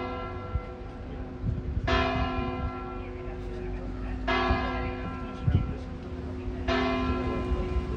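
Sigüenza Cathedral's tower clock bell striking the hour: three slow strokes about two and a half seconds apart, each ringing on and fading into the next. These are the seventh, eighth and ninth strokes of the count.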